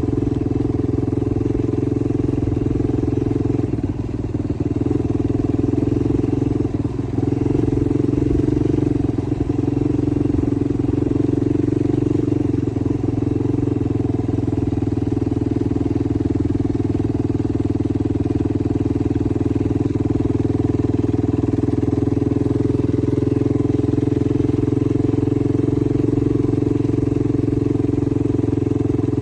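Yamaha YFZ450R quad's single-cylinder four-stroke engine running at a steady pace while riding, with two brief dips about four and seven seconds in.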